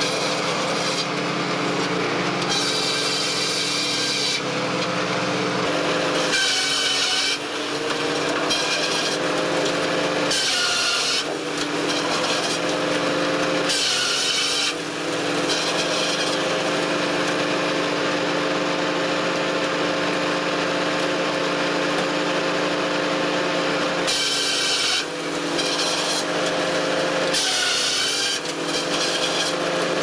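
Sawmill circular saw running and cutting through wood: a steady machine hum under a loud rasping cutting noise, which drops out briefly several times and then resumes.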